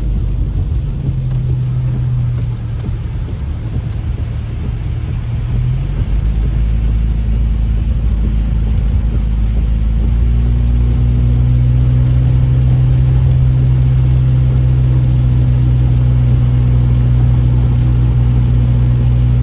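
Steady engine and road noise inside a Subaru's cabin, driving on wet pavement. The low drone grows louder about ten seconds in.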